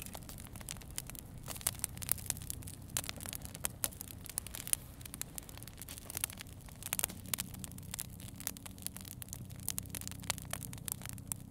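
Wood campfire burning, with frequent irregular sharp crackles and pops over a low steady rumble.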